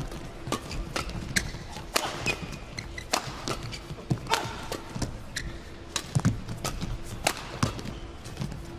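Badminton doubles rally: racket strings striking the shuttlecock in a fast exchange of sharp, irregular cracks, about one to two a second, with players' shoes squeaking and thudding on the court.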